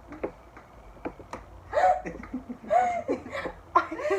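Laughter in short, high-pitched bursts: one about two seconds in, another a second later, and a third near the end.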